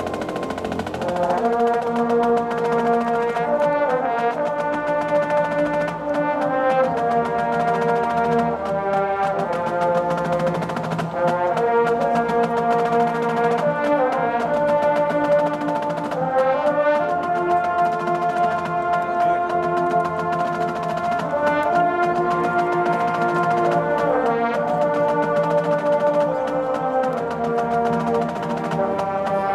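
A marching band's brass section playing a slow chorale of long held chords that change every second or two.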